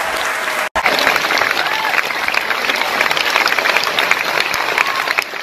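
Theatre audience applauding, a dense stream of hand claps with some cheering voices; the sound drops out for an instant under a second in, then the applause carries on.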